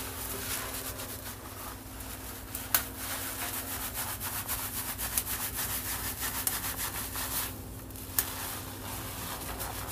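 Hands scrubbing neutralizing-shampoo lather through short hair: a fast, continuous, rough rubbing. A steady low hum runs underneath, and there are two sharp clicks, one near three seconds in and one about eight seconds in.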